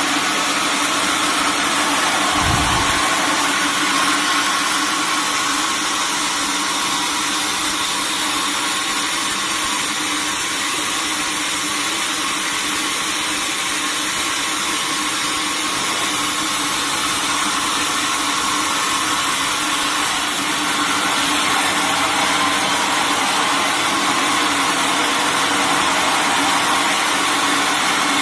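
Sawmill machinery running steadily, a constant hum over a hiss, with one brief low thud about two and a half seconds in.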